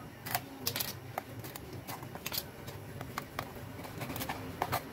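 Hands handling a tied crab and pulling at the black plastic strips that bind it: a string of scattered sharp clicks and crinkles.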